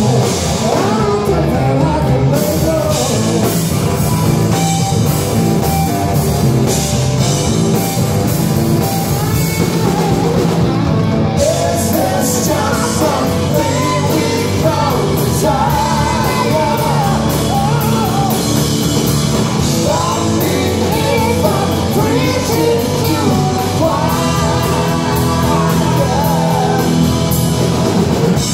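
Live rock band playing: electric guitar, electric bass and drum kit, with sung vocals over them.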